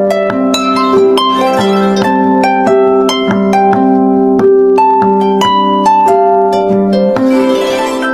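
Samsung phone alarm tone: a harp-like plucked melody of quick notes, about four a second, over a repeating low figure.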